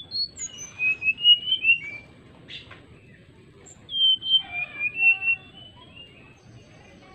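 Brown-chested jungle flycatcher singing two short phrases of clear, fluty whistled notes that slide up and down, a couple of seconds apart.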